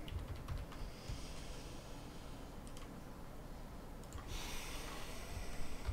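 Faint, scattered clicks of a computer keyboard and mouse as a spreadsheet is updated, with a soft hiss near the end.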